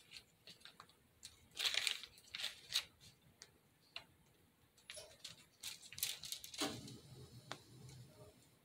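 Faint scattered crinkles and ticks of a plastic piping bag being squeezed as spackle is piped out, with louder rustles about two seconds in and again around six seconds.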